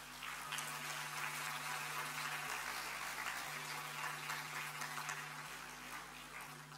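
Audience applauding: a dense patter of many hands clapping that starts at once, holds steady, then thins out and fades toward the end.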